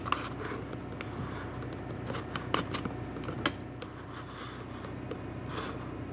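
Handling noise from a camera being positioned on its stand: a few sharp clicks and light scrapes, the strongest near the start and about two and a half and three and a half seconds in, over a steady low hum.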